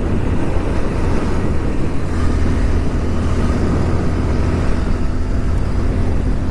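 Motorcycle being ridden along the road: a steady, even rumble of engine and road noise with no change in speed.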